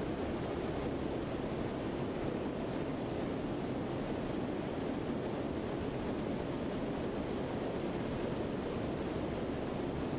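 Steady rushing noise of airflow aboard a Lockheed C-130 Hercules in flight, unchanging throughout.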